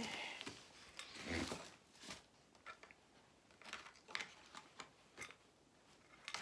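Handling noise of a tripod stand: scattered light clicks, taps and rustles as its parts are moved and fitted, loudest about a second and a half in.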